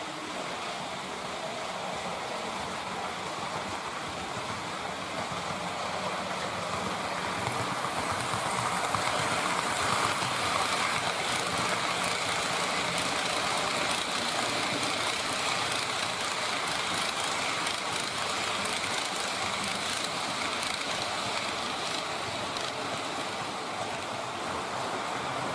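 H0-scale model freight train carrying lorries on low-floor wagons, rolling past on model track: a steady rushing of wheels and motors that swells as it passes close, loudest about ten seconds in, then slowly fades.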